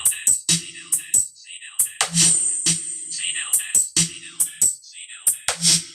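Music with a sharp drum-machine beat played through a sound system under test, driven by an amplifier into a Crown woofer and a Broadway tweeter. The crisp high hits and steady low thumps come about twice a second.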